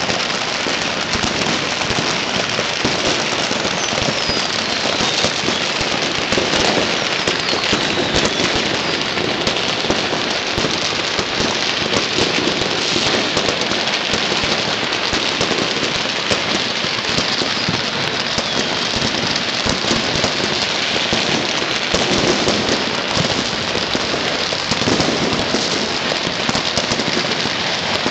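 Massed firecrackers and fireworks going off all over the city: a dense, unbroken crackle of countless rapid pops and bangs that blend into a steady roar, like heavy rain.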